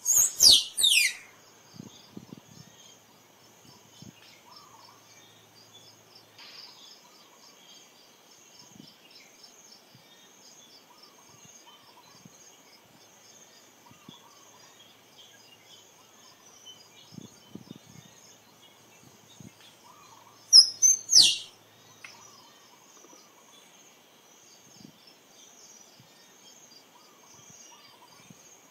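Squirrel calling: a quick run of three sharp, high chirps, each falling in pitch, right at the start, and another short run about twenty seconds in, over a steady high insect drone.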